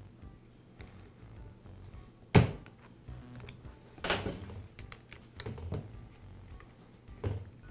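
Hand tools clicking and knocking against a metal workbench and a nail gun's plastic housing: several sharp knocks, the loudest about two and a half seconds in. Soft background music runs underneath.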